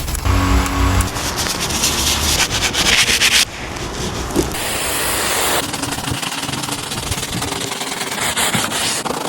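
Rubbing and scrubbing noise from car-cleaning work, made of several short stretches that change abruptly about a second in, midway and near the end.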